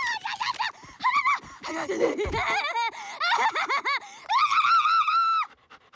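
High-pitched, excited dog-like yelping by a cartoon dog character's voice: a run of short, wavering yips, then one long held howl that cuts off near the end, set off by seeing a cat.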